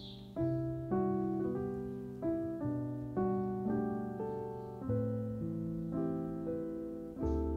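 Background piano music: a slow melody with a new note or chord struck about every half second, each one fading away.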